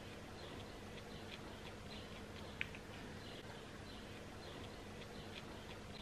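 White paint marker nib scratching on kraft-paper card in short, light strokes, several a second, over a faint steady room hum; one sharp click about two and a half seconds in.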